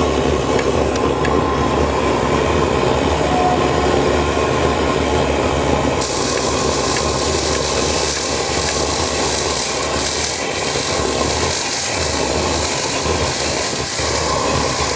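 Lanz Bulldog's single-cylinder two-stroke hot-bulb engine running with a steady rhythmic chugging. A steady hiss joins about six seconds in.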